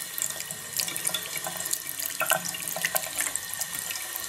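Running tap water pouring onto a hand and splashing on a plastic plate in a washbasin as shampoo lather is rinsed off, a steady rush with many small splashes.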